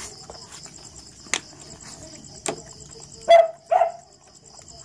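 A dog barks twice in quick succession a little past halfway, over steady chirping of crickets, with a couple of sharp clicks earlier on.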